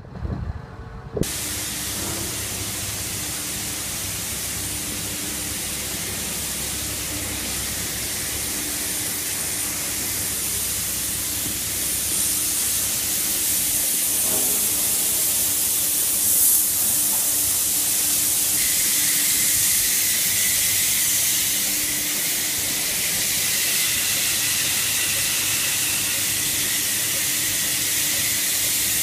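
Water spraying onto a wet floor: a steady hiss, over a faint steady hum, with a thin high whine joining about two-thirds of the way through. It comes in sharply after a brief moment of wind noise on the microphone at the start.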